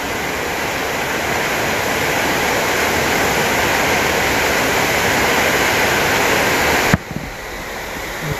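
Waterfall: a steady, loud rush of falling water. About seven seconds in, after a click, it suddenly drops to a lower level.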